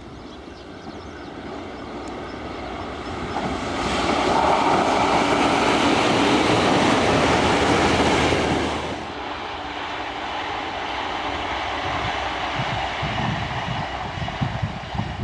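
JR Kyushu 885 series electric limited express passing at speed: a rushing noise builds over about four seconds and stays loud for about four more. It drops off sharply about nine seconds in, then carries on more quietly as the train runs on.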